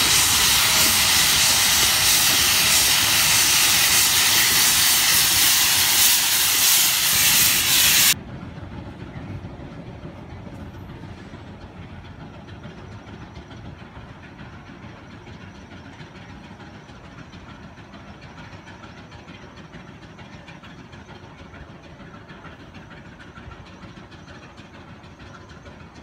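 Shay geared steam locomotive venting steam low beside the track: a loud, steady hiss. About eight seconds in it cuts off suddenly, leaving a much quieter steady noise.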